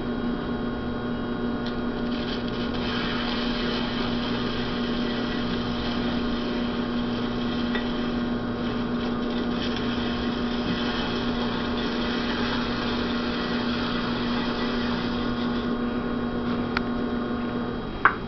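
Electric potter's wheel motor running at a steady speed, a constant hum with a clear steady tone, while a rib is held against the turning clay pot to smooth it. The tone stops shortly before the end.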